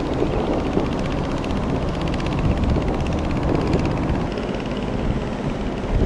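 A passing container ship's engine running as a steady low rumble with a fast, even throb, mixed with wind on the microphone.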